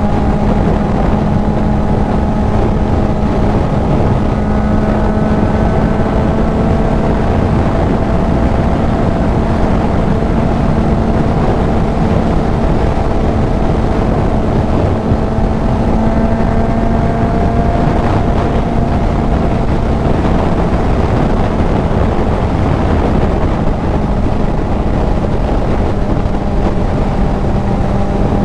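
Kawasaki Z900's inline-four engine through a CS Racing full exhaust, running at a steady cruising speed with a nearly constant pitch, with wind rushing over the helmet microphone.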